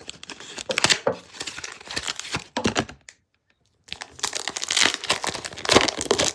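A foil Pokémon card booster pack being torn open, its wrapper crinkling, in two spells with a short pause about three seconds in.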